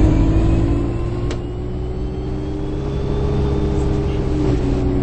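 Running noise inside a moving bus: a low rumble with a steady hum and a thin whine that slowly rises in pitch. A single click comes about a second in.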